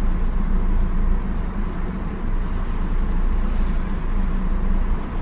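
Steady wind buffeting the microphone over the rush of sea water along a moving ship's hull, a deep uneven rumble with a hiss above it.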